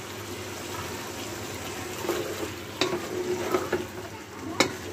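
Spatula stirring boiled split chickpeas into chicken curry in a pot over a light, steady sizzle, with a few sharp knocks of the spatula against the pot, the loudest near the end.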